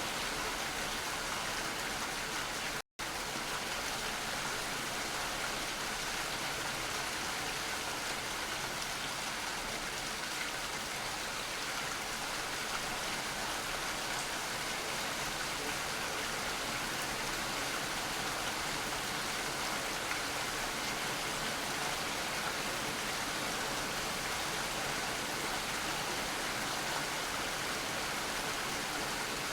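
Steady rain falling, an even hiss with no changes, which cuts out completely for an instant about three seconds in.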